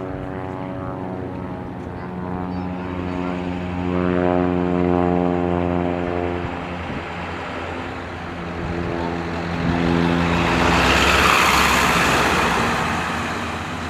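Propeller aircraft engines droning as planes take off one after another. One engine swells to a peak about four seconds in, and a louder one rushes past around eleven seconds in, then fades.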